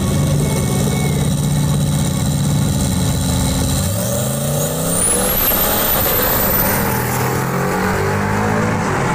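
Drag-racing pickup trucks' engines held at steady revs on the start line, then launching down the strip: about four seconds in the engine pitch climbs sharply, with a high whine rising over it, and climbs again near the end.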